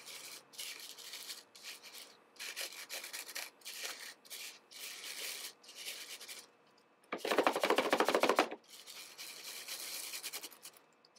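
Dry lamproite gravel raked by a gloved hand in a plastic sifting pan: repeated rasping scrapes, about one a second, with a louder, fuller rattle of the gravel lasting about a second and a half a little past halfway.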